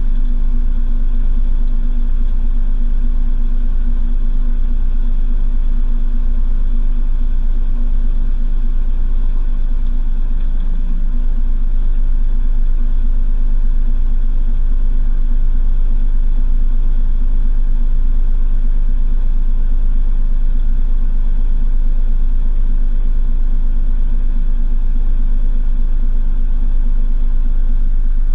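Washing machine heard from inside the drum, spinning at a steady speed: a loud, constant low rumble with a steady motor hum over it.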